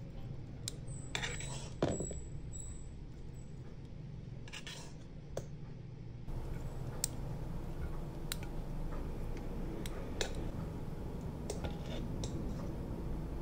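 Metal tongs clinking and tapping against a ceramic platter as pieces of sautéed chayote squash are set down, a scattering of light clicks.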